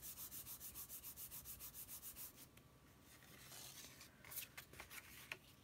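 Hands rubbing back and forth over a folded paper card in fast, even strokes, pressing the fold flat so the glued pop-up piece sticks; after about two seconds the rubbing stops and only fainter paper handling is left.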